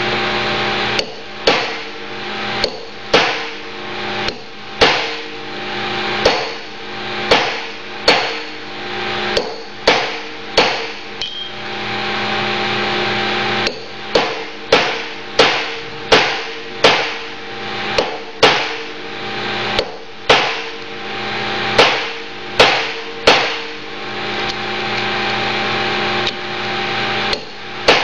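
Hammer striking a cold chisel against the steel wear ring on a Cone Drive reducer's worm shaft. The sharp, ringing metal blows come about one to two a second in runs, with two short pauses, as the sleeve is chiselled at several spots to loosen it without hitting the pinion. A steady hum runs underneath.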